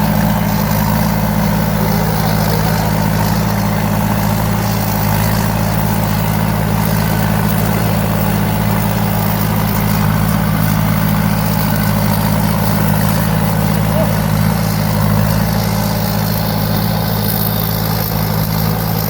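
Thai Seng Super Jiw combine harvester running steadily, its four-cylinder turbo engine giving a constant low drone that holds even throughout.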